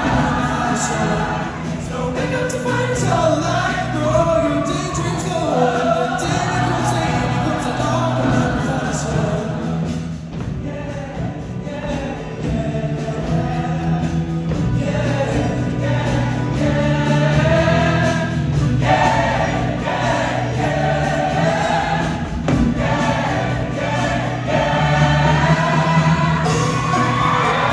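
Show choir singing as a group over instrumental backing music, continuing without a break.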